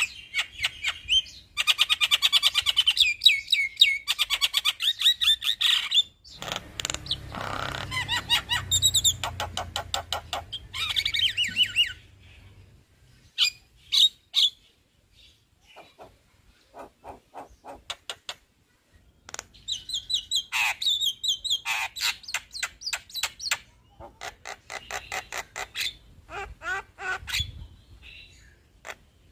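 Male Javan myna singing, in long runs of rapid chattering notes. A harsher, raspier stretch comes in the middle, then a pause with a few single notes, then another fast run.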